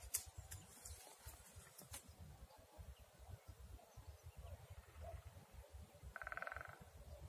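Faint wind rumble on the microphone, with one short buzzy tone about six seconds in.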